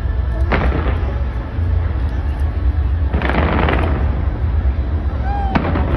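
Fireworks going off over a continuous low rumble: a sharp bang about half a second in, a longer crackling run of bursts around the middle, and more bangs near the end.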